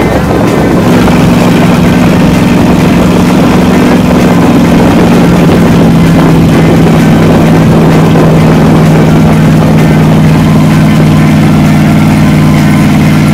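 Tow boat's engine running steadily at towing speed, a constant low drone, over a loud rush of wind and wake water.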